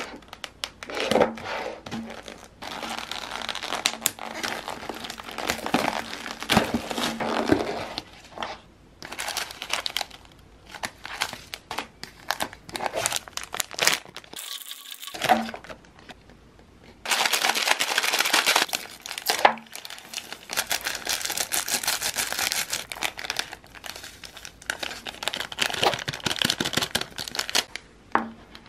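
Plastic film and packaging crinkling and tearing in bursts as an instant noodle cup is unwrapped and its seasoning packets handled, with a short pause about halfway through.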